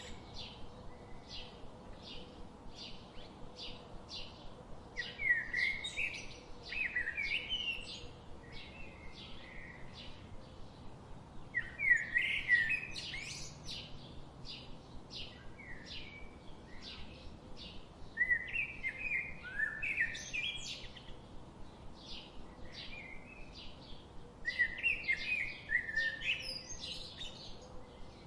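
Birds calling and singing: a short, high chirp repeats about twice a second throughout, and a louder, jumbled song phrase of two to three seconds breaks in four times.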